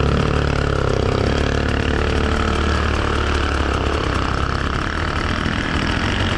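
Enduro dirt-bike engine running at low, fairly steady revs while the bike is worked slowly over hard terrain, its note less even in the second half.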